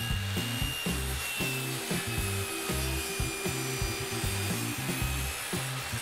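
Circular saw mounted under a saw table, its spinning blade cutting through a board held upright in a tenon jig: a steady rasping hiss with a faint whine that drifts slightly lower as it cuts. Background music plays underneath.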